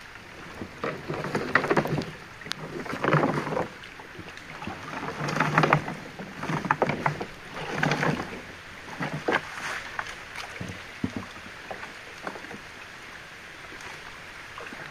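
Water splashing and sloshing against a small boat, in irregular surges about every one to two seconds.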